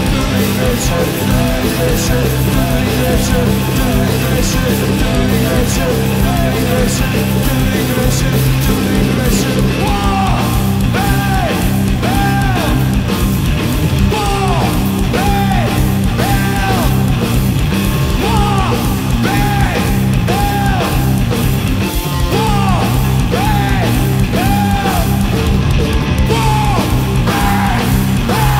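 Heavy rock duo playing live: loud distorted electric guitar over a full drum kit with crashing cymbals. From about ten seconds in, a repeated high bending figure rides over the riff.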